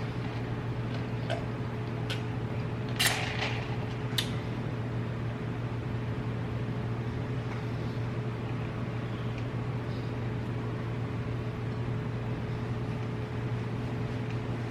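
Steady low hum with a few faint higher tones, like a fan or appliance running in a small room. A few brief clicks and a short crackle come in the first four seconds.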